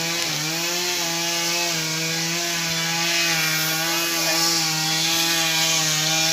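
A small engine running continuously at a steady high speed, its pitch wavering only slightly.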